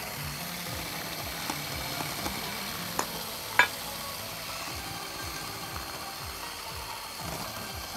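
Electric hand mixer running steadily, its beaters whirring through thick cake batter in a metal bowl as flour is beaten in. Two sharp clicks come about three seconds in, half a second apart.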